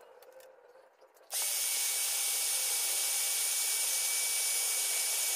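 Electric drill running at steady speed, switched on about a second in, spinning a bolt held in its chuck to drive it into a nut gripped with pliers. A steady whirring whine with a faint high tone that does not change.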